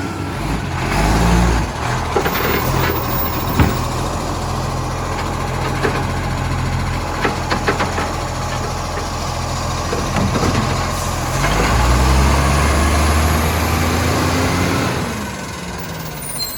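Rubbish truck engine running with an exhaust leak. It revs up briefly about a second in and again for a couple of seconds from about eleven and a half seconds in, with sharp ticks and clicks in between.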